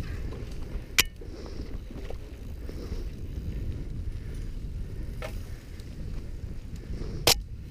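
Mountain bike rolling fast down a forest dirt singletrack: a steady low rumble of tyres and bike, with two sharp knocks, one about a second in and a louder one near the end.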